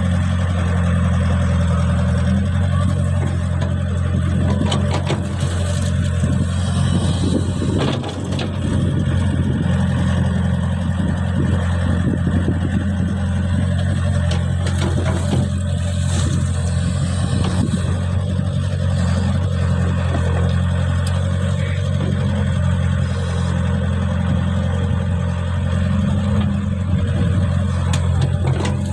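Caterpillar E70B excavator's diesel engine running steadily under load as the machine digs and moves wet mud, with a few scattered knocks.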